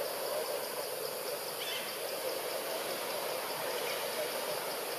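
Forest ambience: a steady hiss of insects and distant birds, with one short faint call about two seconds in.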